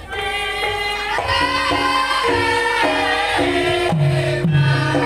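Javanese gamelan music for lengger dance: a melody of stepped, ringing metallophone notes, with low kendang drum strokes coming in about four seconds in at roughly two a second.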